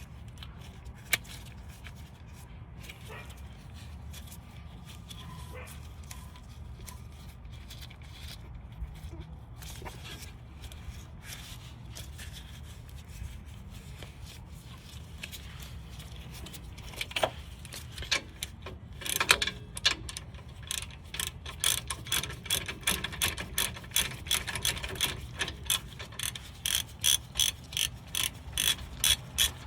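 Socket ratchet wrench clicking on a caliper pin bolt: a few scattered metal clicks at first, then, about two-thirds of the way in, a steady run of sharp clicks at about two to three a second.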